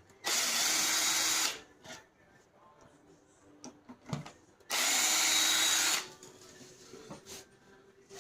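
Power driver running in two bursts of about a second and a half each, near the start and about five seconds in, backing out the screws that hold the other side of a soft-wash pump, with small clicks of handling in between.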